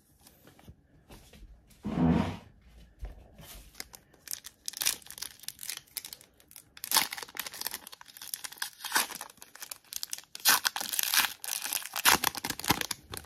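A trading-card pack wrapper being torn open and crinkled in repeated crackly bursts. A brief duller sound comes about two seconds in.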